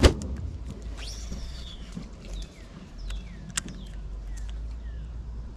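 A sharp knock at the start, then a baitcasting reel's spool whirring briefly as line pays out on a cast. Birds chirp in short falling notes through the rest, with a few sharp clicks.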